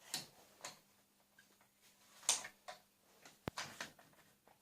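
A handful of scattered clicks and light knocks from a telescopic rifle stock being handled. The loudest knock comes a little past the middle, with a sharp single click about a second later.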